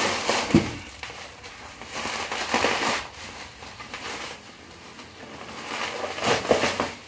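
Bubble wrap and plastic sheeting crinkling and crackling as it is handled and pulled at around a box, in three bursts, with a short knock about half a second in.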